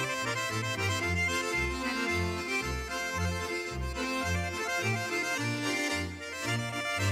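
Swiss Ländler music: two Schwyzerörgeli (Swiss button accordions) play a schottische melody together, over a double bass sounding a steady line of separate low notes about twice a second.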